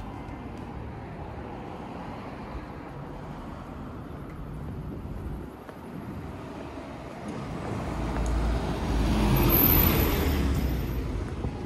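Street traffic noise, then a large truck's engine and tyres grow loud close by, peak near the end and fade away.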